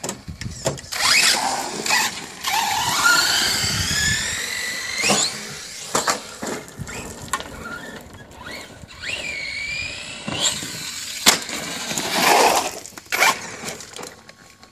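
DHK Zombie 8E 4WD brushless RC truggy driving on concrete: its electric motor whines, rising and falling in pitch as it speeds up and slows, with bursts of tyre noise and a sharp knock about eleven seconds in.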